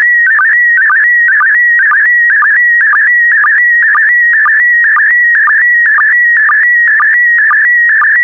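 PD120 slow-scan television (SSTV) signal: a steady warbling tone around 2 kHz whose pitch shifts with the picture's brightness, broken by a short lower sync blip about twice a second. It is sending a still image line by line.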